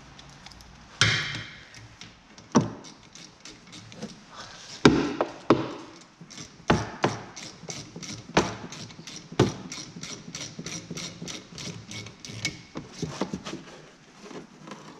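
Hand ratchet working bolts on a rear brake caliper: sharp metallic clicks and knocks, coming in quick runs of several a second through the middle, with the loudest knock about five seconds in.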